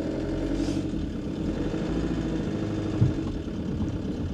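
Ford Transit camper van's engine running steadily at low speed, heard from inside the cab, with a single thump about three seconds in.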